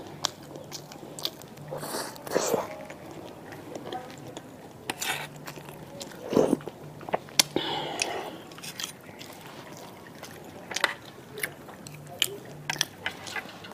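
Close-miked eating: biting and chewing soft food, with a sip of broth from a spoon about halfway through. Sharp clicks from chopsticks and a spoon against a metal tray come throughout.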